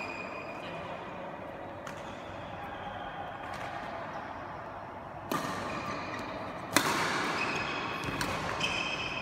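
Badminton rackets striking a shuttlecock in a rally: two sharp hits about a second and a half apart, the second the loudest, each echoing in a large hall.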